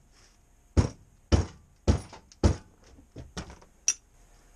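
Hammer blows on a stuck piston, cushioned by a cloth, driving it out of an outboard motor cylinder: four sharp thunks about half a second apart, then a few lighter knocks.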